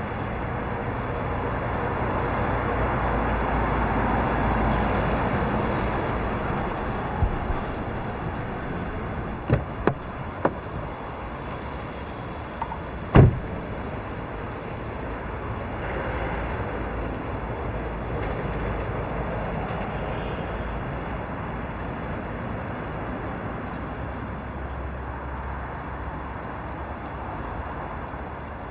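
Road traffic running steadily, swelling for a few seconds as vehicles pass. A few light clicks come about a third of the way in, then a single sharp thump of a car door shutting about halfway through.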